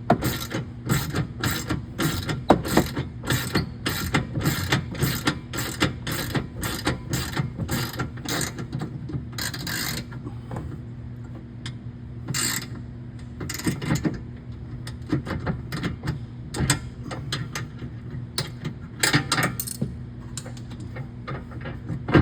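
A hand ratchet wrench clicking in quick, regular strokes, about two a second, as a bolt is run in. After about ten seconds the rhythm breaks off into occasional clicks and knocks.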